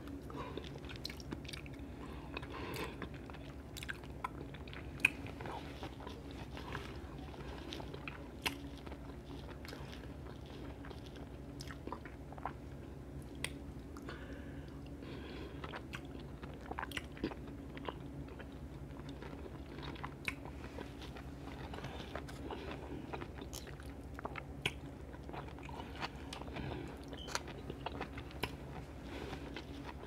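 Close-up sounds of a person chewing and biting chicken and shrimp fettuccine Alfredo, with frequent sharp clicks scattered throughout.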